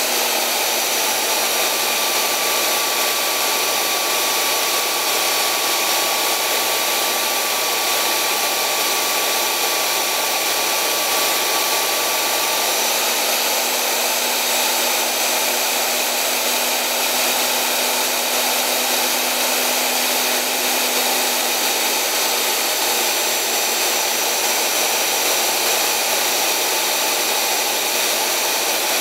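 4 x 24 inch belt sander with a 120-grit belt running steadily, with a steel chisel being ground on the belt at times.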